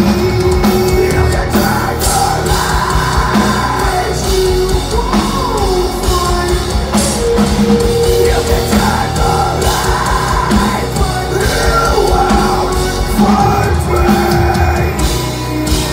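Live metalcore band playing loud: electric guitars, bass and drums through the PA, with a singer holding long sung notes over them. Heard from within the crowd.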